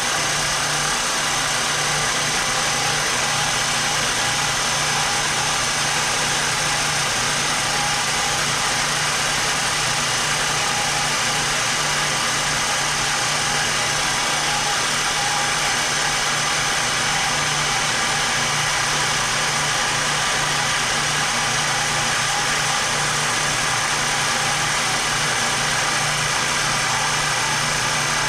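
Power saw running steadily during a cut through a 3D-printed plastic part: an unchanging motor hum and whine.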